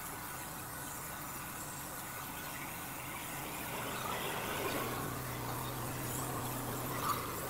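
Pressure washer's engine running steadily at a distance while water is sprayed onto plants, giving an even hiss. A low steady hum comes in about five seconds in.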